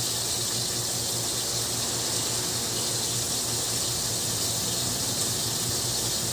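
Steady background hiss with a low hum beneath it, unchanging and with no distinct events.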